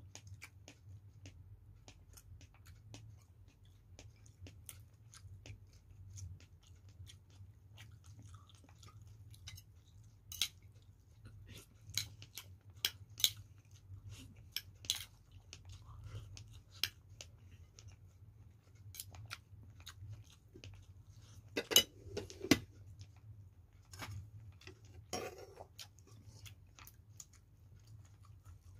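Close-up eating sounds of chicken soup with papaya being eaten: chewing and lip smacks with scattered small clicks of a spoon against a plate, over a faint steady low hum. There are a few louder clinks about two-thirds of the way in.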